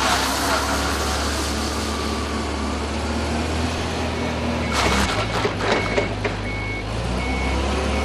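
Torque-converter forklift engine running as the truck is driven and switched between forward and reverse, with its reversing alarm beeping from about five seconds in. A hissing burst at the start and a cluster of scrapes and knocks around five to six seconds come from the truck's direction changes.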